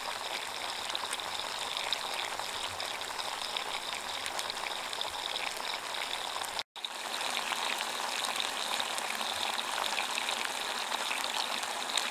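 Meat sizzling in a frying pan over a wood-burning camp stove: a dense, steady crackling hiss of fine pops, broken for an instant about two-thirds through.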